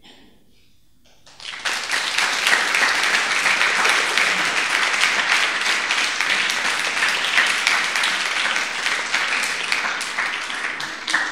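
Audience applauding, a dense clatter of many hands clapping that starts about a second in and dies away near the end.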